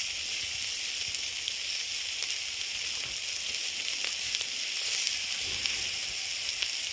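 Pancake batter frying on a hot grill: a steady sizzle with occasional small pops.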